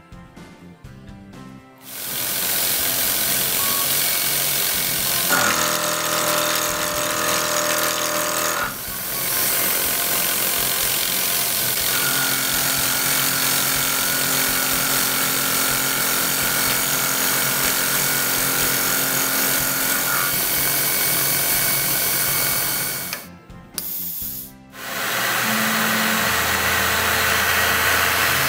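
Tormach PCNC 1100 CNC mill cutting a metal block: steady cutter and spindle noise with held tones, starting about two seconds in and breaking off briefly near the end before resuming. Background music plays underneath.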